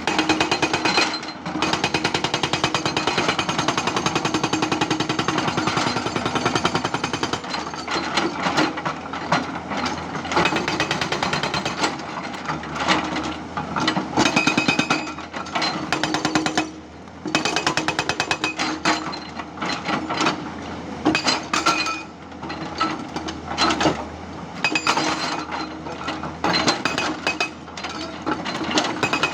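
Hydraulic rock breaker on a Tata Hitachi 200 excavator hammering rock in rapid, continuous blows, stopping briefly a few times, with the excavator's engine running steadily underneath.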